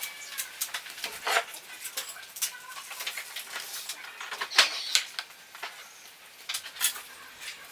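Rolls of black hook-and-loop tape handled on a plywood workbench: scattered scratchy rustles, clicks and short rasps, with scissor snips near the end as the tape is cut.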